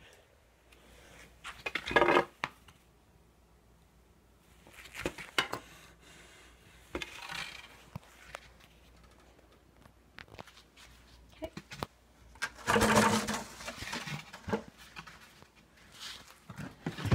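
Scattered knocks, scrapes and rustles of objects being handled and moved about while the phone is carried, with a longer, louder stretch of noise about thirteen seconds in.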